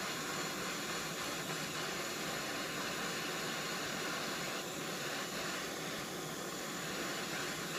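Propane torch burning with a steady hiss, its flame held on a drill horn to melt silver solder.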